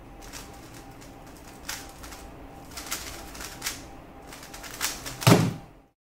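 Clacking turns of a MoYu WeiLong WR M 2021 Maglev 3x3 speedcube during a fast solve, in clusters of sharp clicks, then a loud thump near the end.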